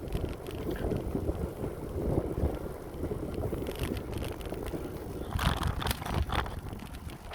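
Wind buffeting the microphone of a moving bicycle, a steady low rumble, with a few short clicks between about five and six and a half seconds in.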